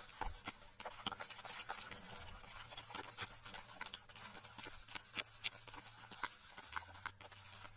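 Metal spoon stirring thick batter in a plastic bowl: faint, irregular clicks and taps of the spoon against the bowl, with the soft wet sound of the batter being worked.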